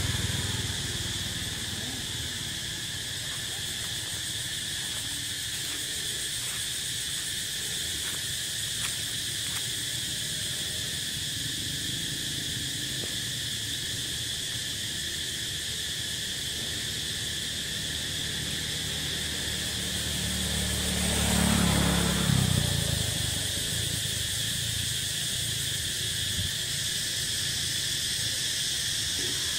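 Steady insect chorus, ringing in several high bands, over a low background rumble. About twenty seconds in, a louder low rumble swells and fades over two or three seconds.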